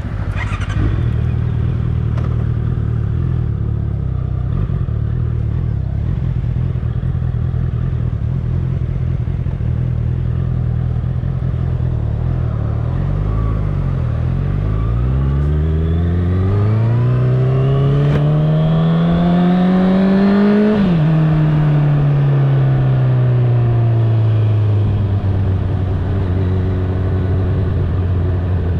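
Honda CBR650R's inline-four engine through an Akrapovic exhaust, heard while riding. The engine note holds steady, climbs in pitch for several seconds as the bike accelerates, drops sharply about two-thirds of the way in, then falls away gradually and settles to a steady note.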